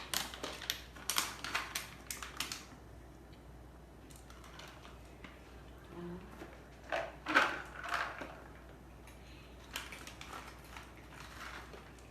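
Bursts of quick crunching and clicking, a few seconds apart: pets chewing hard treats.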